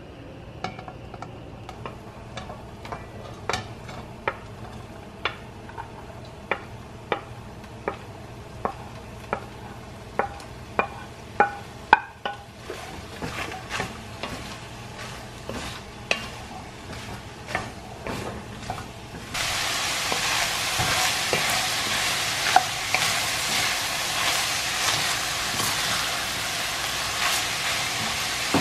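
A wooden spoon knocking repeatedly against an enamelled cast-iron Dutch oven while diced onion and green bell pepper are stirred into browned ground beef. About two-thirds in, a loud, steady sizzle of the beef and vegetables frying takes over.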